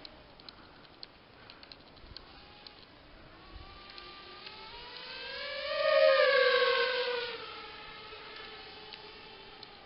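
RG210 FPV miniquad's motors whining in flight. The whine swells to a loud pass about six seconds in, its pitch rising and then falling as it goes by, then fades back to a faint whine.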